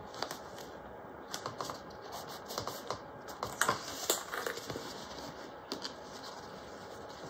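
Waterproof canvas being handled, folded and pressed into place by hand: scattered soft, irregular clicks and light rustles.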